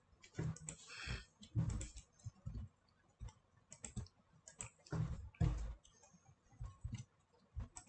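Irregular clicking of a computer mouse: single and paired clicks spaced unevenly, with short pauses between them, as files are selected and deselected.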